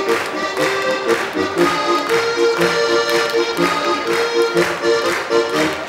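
Solo accordion playing a lively Austrian folk dance tune, with sustained melody notes over a steady beat of about two strikes a second.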